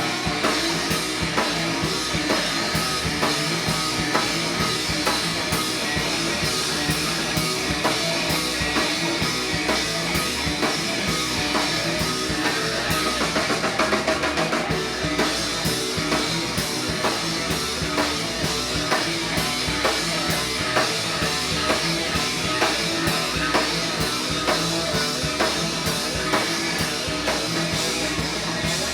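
Rock music, an instrumental stretch with no singing, driven by a drum kit keeping a steady beat under the band.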